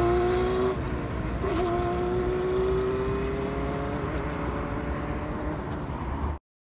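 Honda CBR600F's inline-four engine accelerating away, its pitch climbing steadily. Just under a second in it drops for an upshift, then climbs again as it fades into the distance. The sound cuts off abruptly near the end.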